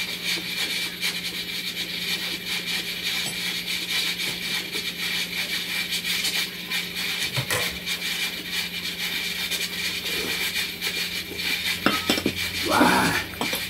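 Mealtime table sounds: a steel ladle and chopsticks tapping against bowls and the cooking pan, over a steady hiss and low hum. A couple of sharp clicks come about halfway through and near the end, followed by a short louder noise.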